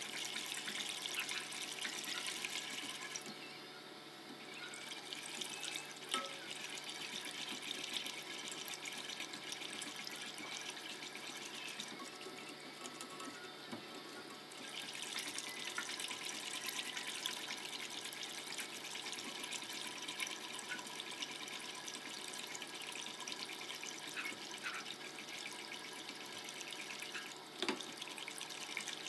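Silicone whisk stirring a thick cocoa pudding mixture in a pot as it heats toward the boil: a steady wet swishing and sloshing with light ticks of the wires against the pot, easing off briefly twice.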